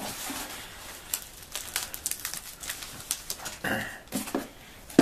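Crinkling and rustling of newspaper and sticky tape as a taped, newspaper-wrapped parcel is handled and lifted out of a cardboard box. Scattered light crackles run throughout, with a couple of louder bumps about three-quarters of the way in.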